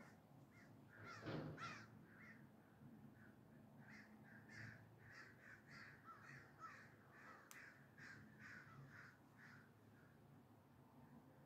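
Faint, rapid run of short, harsh bird calls, about two or three a second, loudest in the first two seconds and dying away near the end. There is a single sharp click a little past halfway.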